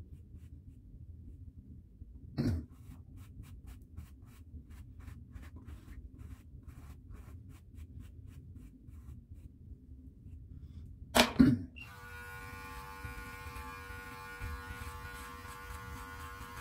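Bristle brush rasping through a long beard in quick strokes, about three a second, followed by a short loud vocal burst. Then an electric beard clipper switches on and runs with a steady buzzing hum.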